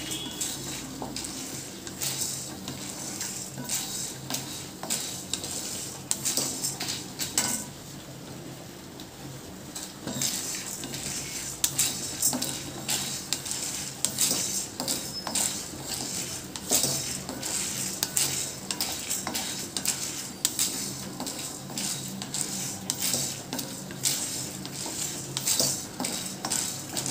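A metal spoon stirring and scraping urad dal and dried red chillies as they dry-roast in a pan with no oil, giving many quick irregular clinks of metal on the pan. The stirring eases off briefly about eight seconds in.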